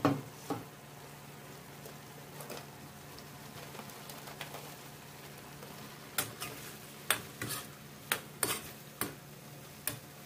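Food sizzling quietly in a wok, with a clatter of the wok's glass lid coming off at the start. In the second half a spatula knocks and scrapes against the wok about seven times as the stir-fry of vegetables and fried tofu is stirred.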